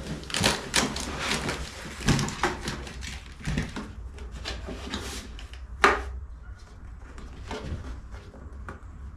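Polystyrene foam packaging scraping and knocking as a diesel air heater is lifted out of its foam box, a busy run of short scrapes at first and one sharp knock about six seconds in, then quieter handling.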